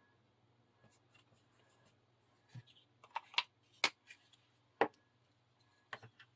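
A handful of sharp clicks and taps as small craft tools and supplies are picked up and set down on a work table, the loudest two about four and five seconds in.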